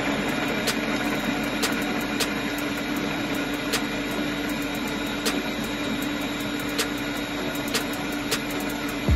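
ThermoCook TC Pro M 2.0 thermo cooker's blade running steadily at full speed (speed 8), blending a liquid curry sauce of onion, cashews, tomatoes, water and yogurt in its steel jug, with a steady hum and occasional light ticks.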